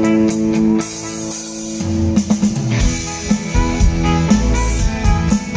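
Live rock band playing an instrumental passage with electric guitars, bass and drum kit. A sustained guitar chord breaks off about a second in, and after a thinner stretch the drums and bass come in with a full beat about three seconds in.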